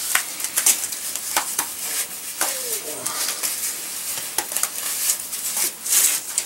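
Rubble and mortar being packed into a hole in a concrete cellar wall: irregular scraping, clicks and knocks of stone in a small room.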